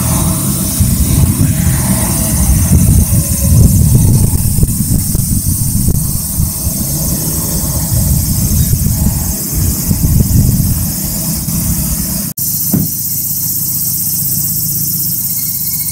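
Exhaust of a Subaru Impreza GH2's 1.5-litre boxer four heard at the tailpipe through the stock muffler, an uneven low rumble. About twelve seconds in it cuts to the same car idling steadily through a Fujitsubo Authorize S aftermarket muffler.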